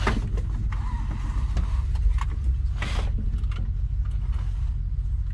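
Seat belt being pulled across and buckled in an excavator cab: scattered clicks and rattles of the belt and latch, with a louder clatter about three seconds in, over a steady low rumble.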